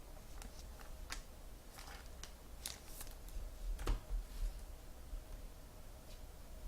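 Trading cards being handled at a table: a few light clicks and rustles, mostly in the first four seconds, over a low room hum.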